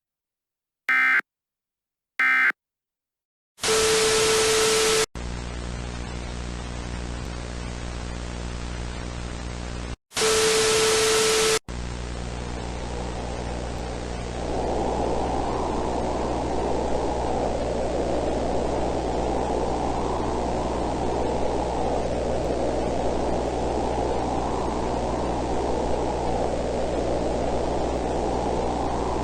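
Three short digital data bursts of an emergency-alert end-of-message signal, then harsh static. Two loud blasts of static, each about a second and a half long and carrying a steady tone, are followed by continuous hissing static over a low electrical hum; about 14 seconds in, a louder rushing layer of noise joins.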